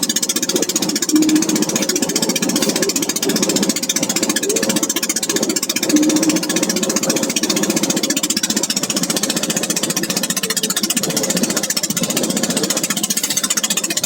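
A fishing boat's engine running steadily with a fast, even clatter.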